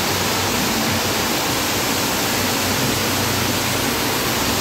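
Fountain water falling as a curtain from an overhead ledge and splashing into a shallow pool: a steady, even rush.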